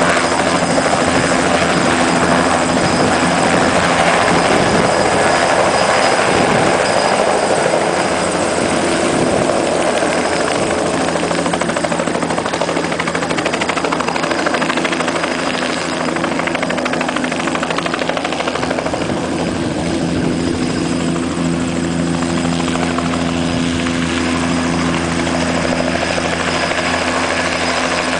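Light helicopter's engine and two-blade rotor running continuously, a steady high whine over a low hum, as it lifts off and moves away; the sound eases a little after about ten seconds.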